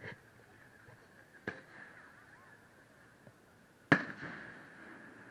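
Aerial firework shells: a fainter bang about a second and a half in, then a loud shell burst near 4 s whose boom echoes and fades away.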